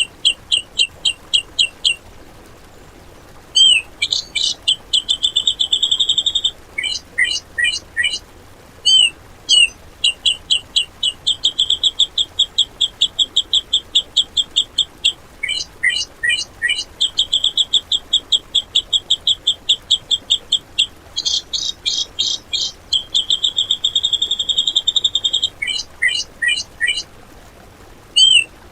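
Cucak jenggot (grey-cheeked bulbul) singing a rough, rapid-fire "shooting" song: phrases of fast, sharp high chirps, some run together into quick rattling trills, repeated every few seconds with short pauses between.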